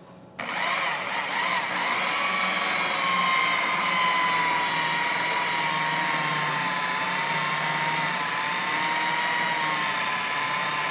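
Electric variable-speed rotary polisher with a wool bonnet starting up about half a second in, then running steadily with a high motor whine that wanders slightly in pitch as the pad buffs polish on aluminum.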